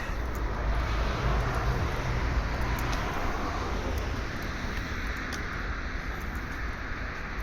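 Road traffic going by, a steady noise of cars passing with a low rumble.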